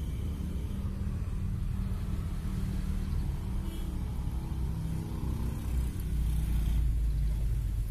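Low, steady rumble of nearby motor traffic, swelling louder about six seconds in.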